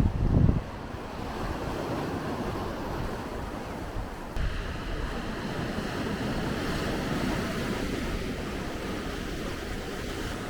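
Sea surf washing steadily onto the shore, with wind buffeting the microphone for about the first half second.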